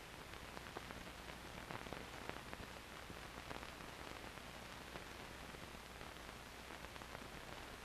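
Faint, steady hiss of a 16mm film soundtrack with a low hum and scattered faint crackles, in a gap in the narration.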